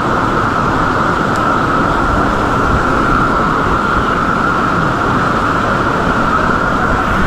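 Waterfall's falling water: a loud, steady rushing noise.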